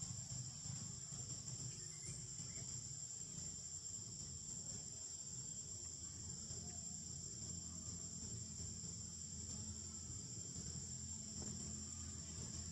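A steady, high-pitched insect chorus, one unbroken drone with no pauses, over a low steady rumble.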